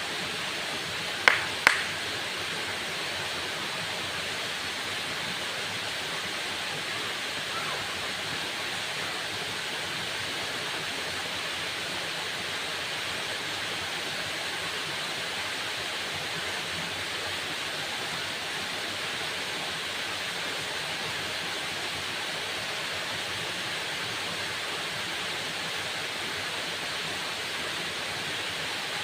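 Waterfall: water falling in a steady, even rush. About a second and a half in, two short sharp clicks stand out above it.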